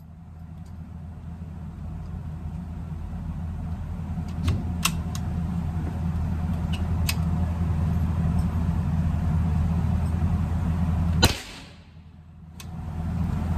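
A steady low rumble that grows louder, with a few light clicks over it about four to seven seconds in. It stops abruptly at a sharp click about eleven seconds in and comes back just before the end.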